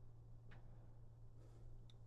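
Near silence: room tone with a low steady hum and two faint clicks, about half a second in and near the end.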